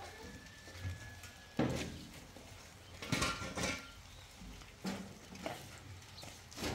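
A few irregular sharp knocks and clatters, the loudest about a second and a half in.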